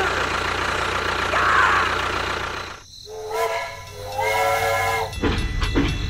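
A small electric motor of a miniature toy tractor hums steadily. Then a toy steam locomotive's sound unit gives two whistle blasts, each several tones at once, the second one longer. From about five seconds in, rhythmic chugging ticks follow as the toy train runs.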